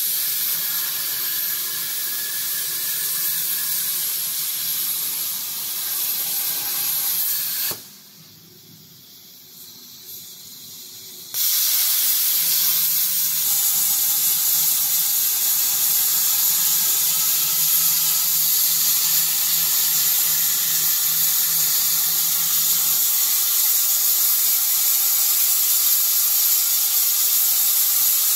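CNC plasma cutting torch (200 A plasma source) hissing steadily as its arc cuts sheet metal. About eight seconds in the arc cuts out and the sound drops for some three seconds, then the arc restarts and the hiss runs on.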